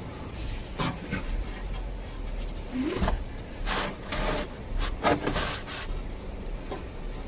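Hex key and gloved hand scraping and clicking against a plug on a 4x4 transfer case as it is worked during an oil drain, in a string of short scrapes with a brief squeak about three seconds in.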